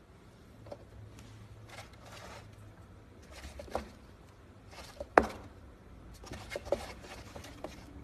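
Chinchilla rolling in a dust bath in a wooden tub: bursts of rustling, scraping sand, with a few sharp knocks, the loudest about five seconds in.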